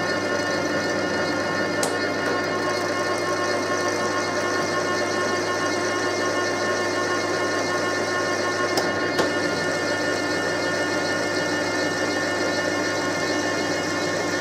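Deckel FP1 milling machine running steadily in horizontal milling, its drive giving a steady hum and whine, while it cuts an angled face on steel grinder tool rests. A few sharp ticks come about two seconds in and twice near the middle.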